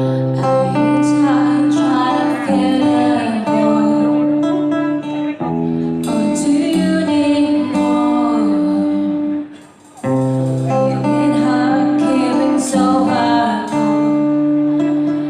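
Band playing a song with guitar and a singer, the music dipping briefly about ten seconds in before carrying on.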